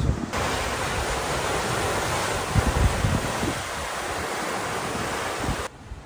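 Rushing wind buffeting the microphone over the wash of the sea, with a few heavier gusts. It cuts in abruptly just after the start and cuts out abruptly shortly before the end.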